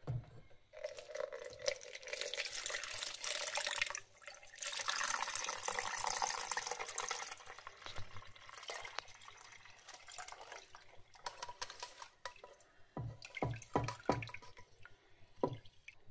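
Herbal infusion poured from a pan through a metal mesh sieve into a plastic jug: two long splashing pours, then a thinner trickle and drips, with a few knocks near the end.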